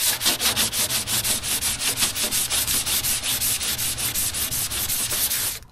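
Sandpaper rubbed by hand across a car body panel in quick, even back-and-forth strokes, about five a second, stopping suddenly near the end.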